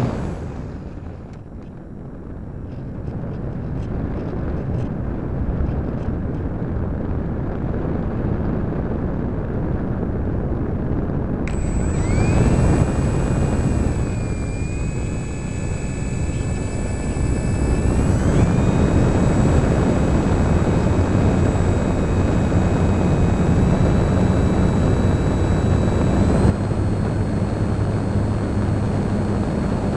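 Parkzone Radian electric glider heard from its onboard camera: steady wind rush and propeller noise with the whine of its brushless motor. The sound dips as power comes off at the start, then a steady whine comes back partway through and steps up in pitch twice, a little past the middle and near the end, as the throttle is raised for a climb.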